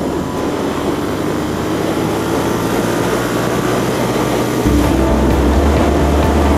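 Royal Enfield Interceptor 650 parallel-twin running under way through its exhaust, the note rising slowly as the bike gathers speed. About two-thirds of the way through, a heavy wind rumble on the microphone comes in and stays.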